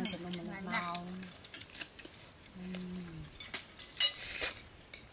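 Metal spoons clinking against ceramic plates and bowls as people eat, a few sharp clinks among quieter scraping.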